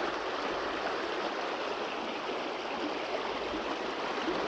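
River water rushing and babbling steadily over rocks.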